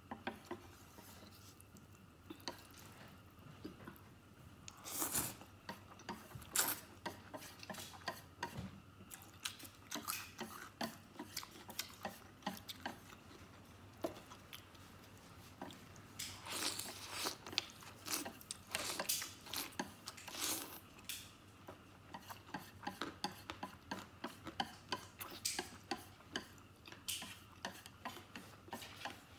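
Wooden chopsticks tapping and scraping on a metal tray while picking up the last noodles, with chewing and several longer bursts of slurping. The taps are many and irregular throughout.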